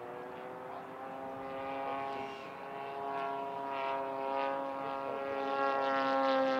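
HSD Super Viper 105 mm electric ducted-fan model jet whining as it taxis. The whine rises slowly in pitch and grows louder as the fan speeds up.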